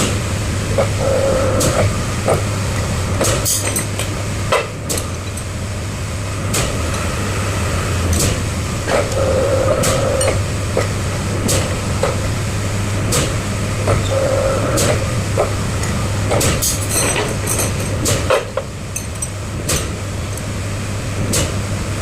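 Heavy machine's engine running steadily, with sharp metallic knocks and clanks about once a second and a short whine every few seconds.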